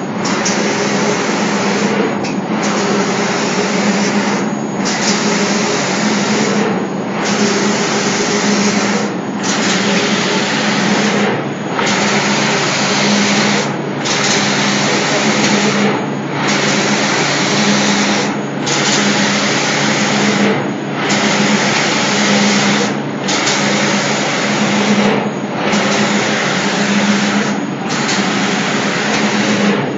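Spray guns of an automatic door-painting machine hissing as they spray, the hiss cutting out briefly about every two and a quarter seconds, over a steady machine hum.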